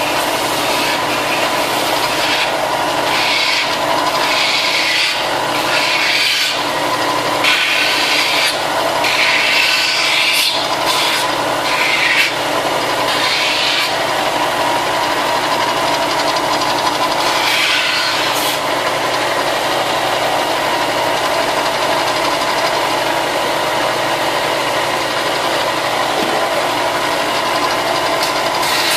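Electric sander running steadily, with ABS plastic armor parts pressed against it in a series of short sanding strokes, about eight in the first half and one more later on; in between, only the motor is heard running.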